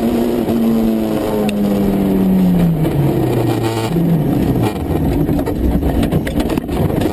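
Rally car engine heard from inside the cockpit, holding steady revs, then dropping as the driver comes off the throttle, and picking up again about four seconds in. Rough road and tyre noise with a run of short knocks and clatter fills the last few seconds.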